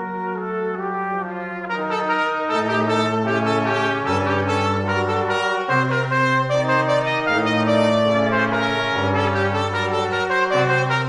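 Brass quintet of two trumpets, French horn, trombone and tuba playing in sustained chords over a tuba line that steps to a new note every second or so. The ensemble grows fuller and louder about two seconds in.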